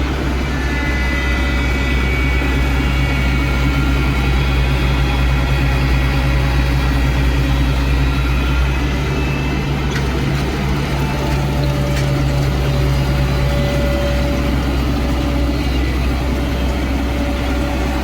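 Paddy combine harvester's engine running steadily.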